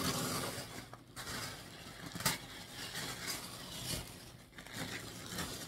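Tissue paper rustling and crinkling as it is pulled out of a shipping box, with a short click about two seconds in.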